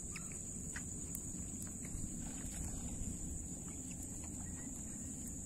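Steady high-pitched insect drone over a low rumble of wind, with scattered short faint chirps and clicks.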